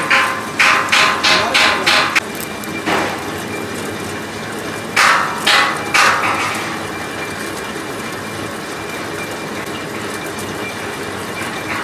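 Metal lathe running as a boring bar cuts the centre hole of a spinning steel disc, a steady machine hum. Over it come sharp metallic knocks: a quick run of about seven in the first two seconds, one near three seconds, and three more about half a second apart around five to six seconds in.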